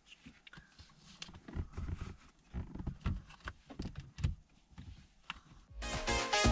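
Irregular knocks, clicks and rustling of plastic car interior trim being handled and pressed into place. Loud electronic music fades in near the end.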